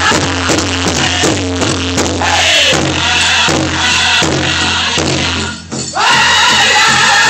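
Powwow drum group pounding a steady beat on a big drum while singers chant a grass dance song. The song stops a little over five and a half seconds in, and the crowd cheers and whoops.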